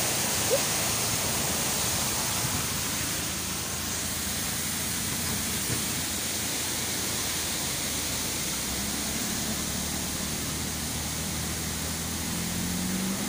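A waterfall in heavy flow, rushing steadily, giving way a few seconds in to steady road noise inside a moving car on a wet road. A low engine hum comes in during the second half.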